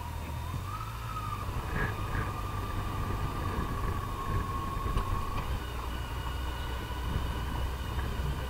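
Yamaha FJR1300 motorcycle's inline-four engine running steadily at road speed, with wind and road noise from riding. A thin steady whine sits above the low engine hum.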